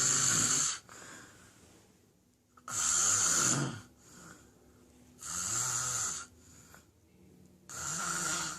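A person snoring in a steady rhythm: a snore about every two and a half seconds, each lasting about a second and followed by a fainter breath.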